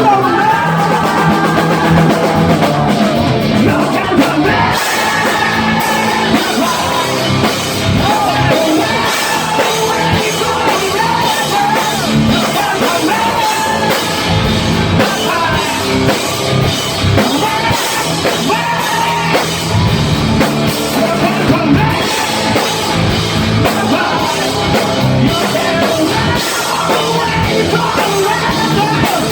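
Live rock band playing with a male lead vocalist singing, loud and continuous, with the band's guitars and drums underneath the voice.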